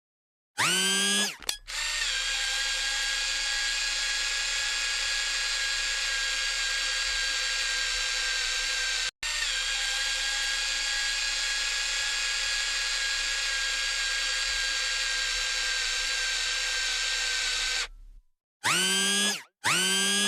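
A small electric motor whirring steadily for about sixteen seconds, with a brief cutout in the middle. It is framed by short rising pitched sound effects, one just before it starts and a few near the end.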